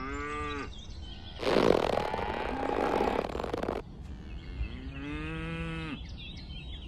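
Cattle mooing: three calls, a short one at the start, a longer, louder and rougher one after about a second and a half, and a third near the end.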